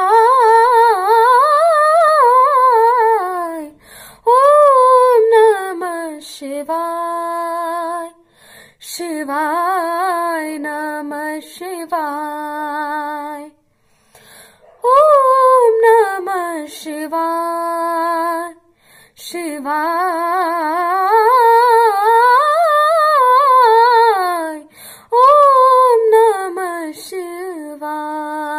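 A girl singing solo and unaccompanied: long phrases that slide up and down in pitch, with several notes held steady, broken by short pauses for breath.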